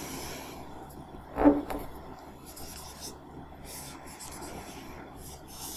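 Marker pen drawing on a whiteboard: faint scratchy strokes, with one brief louder sound about a second and a half in.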